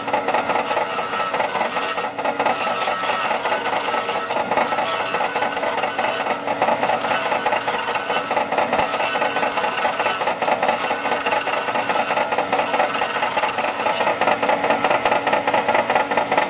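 Valve refacing machine running, its grinding stone facing a small-engine flathead valve under oil: a steady motor hum with a high grinding hiss that comes in passes of about two seconds, broken by short gaps. The grinding hiss stops about 14 seconds in while the machine keeps running.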